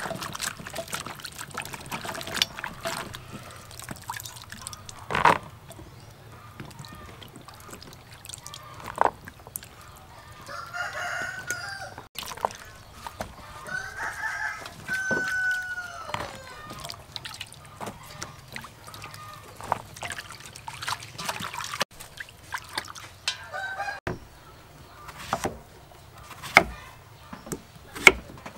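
A rooster crowing a couple of times in the background around the middle, over scattered clicks and knocks of vegetables being handled. Near the end, a few sharp knife cuts through a gourd on a wooden chopping board.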